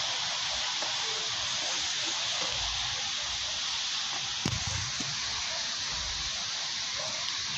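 Steady hiss of light rain falling, with an uneven low rumble underneath and a single short knock a little past halfway through.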